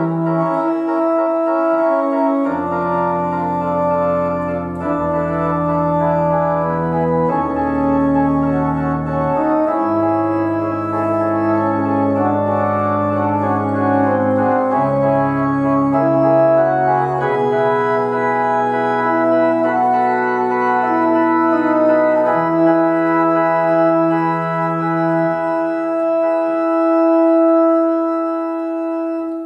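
Church organ playing slow, held chords, with deep pedal bass notes sounding under most of them; near the end the bass drops away and a single upper chord is held.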